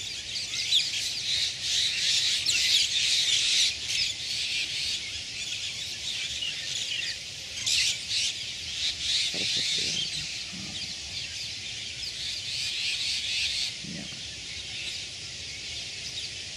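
A large flock of birds calling together at a roost, a dense chatter of many short, overlapping chirps and squawks. It is loudest in the first few seconds and swells again around the middle.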